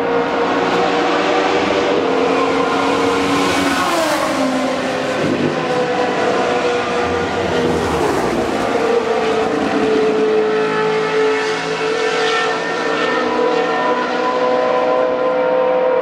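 Historic Formula One cars' racing engines running at high revs as they go past, with several engine notes heard at once. About four seconds in, one car's note drops sharply in pitch as it passes.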